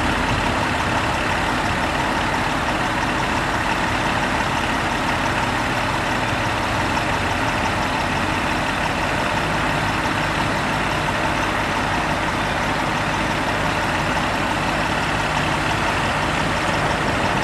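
Heavy engine running steadily at a constant level, a continuous hum with steady tones through it and no change in pitch.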